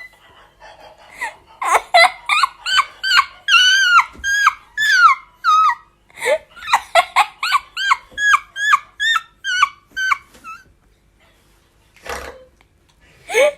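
A person's high-pitched squealing laughter, a rapid series of short wheezing shrieks about three a second, said to sound like a seagull's cry. It comes in two long runs with a brief break between them, then a short burst near the end.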